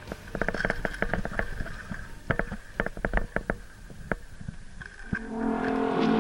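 A string of sharp clicks and snaps at uneven spacing, some in quick clusters, for about four seconds. Music fades in near the end.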